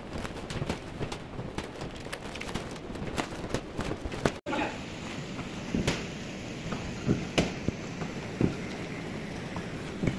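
Loading-bay clatter: a run of quick clicks and knocks as sacks are handled onto a truck. Then, after a cut about four seconds in, a manual pallet jack stacked with sacks is pulled across a concrete floor, with a steady rolling noise and a few separate knocks.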